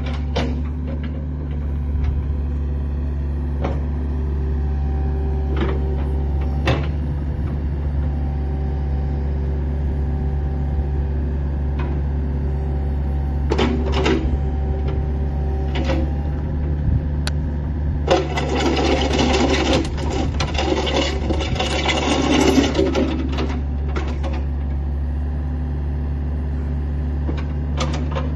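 Compact tracked excavator's diesel engine running steadily with the hydraulics working the boom, arm and bucket, and scattered sharp clunks from the moving arm and bucket linkage. A little past halfway a louder rushing hiss comes in for about five seconds.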